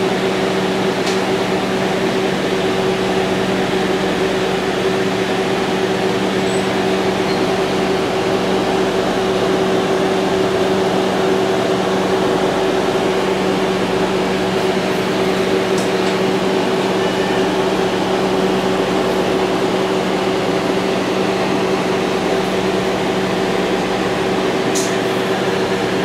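Steady drone inside the passenger car of a KRD MCW 302 diesel-hydraulic railcar running at an even speed: a constant engine hum with running noise and air-conditioning hiss, holding one pitch throughout.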